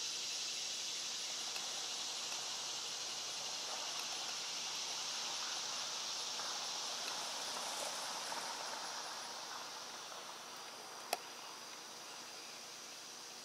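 Steady outdoor insect chorus, a continuous high-pitched chirring that gets somewhat quieter past the middle. A single sharp click sounds near the end.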